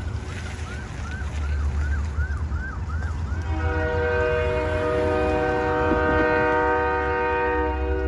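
A locomotive's multi-chime air horn starts abruptly about three and a half seconds in and is held as one steady chord, at a grade crossing. Before it, a short rising chirp repeats two or three times a second, over a steady low rumble.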